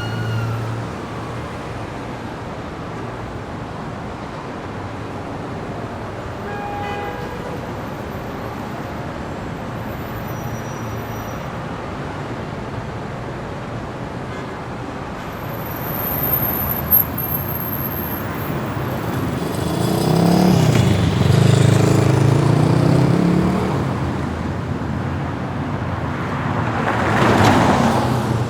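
City street traffic: a constant hum of passing cars, with the tail of a siren fading out at the start and a short knock a little past the middle. A heavy vehicle's engine passes loudly about twenty seconds in, and another vehicle rushes by near the end.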